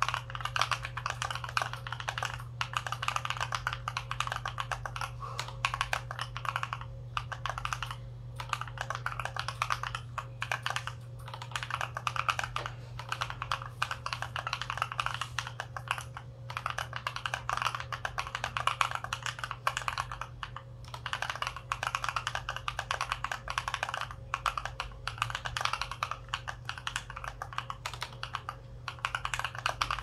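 Fast typing on a custom mechanical keyboard with Holy Panda tactile switches lubed with Tribosys 3203, an FR4 plate, PBT keycaps and foam in the case: a dense run of keystroke clacks broken by brief pauses every few seconds. A steady low hum runs underneath.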